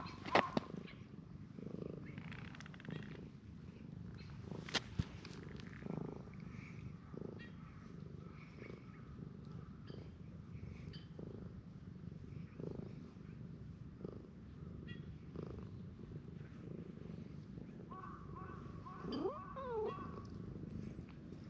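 Domestic cat purring steadily while being stroked, a close, continuous low rumble. A sharp click comes just after the start and another about five seconds in, and a brief call with sliding pitch is heard near the end.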